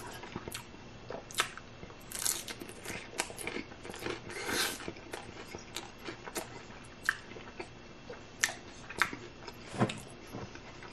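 Hard corn taco shell being bitten and chewed, with irregular sharp crunches coming in quick clusters.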